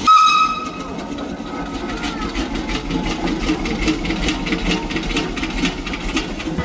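A machine running with a rapid, even ticking clatter over a steady hum, with a brief high whine at the very start.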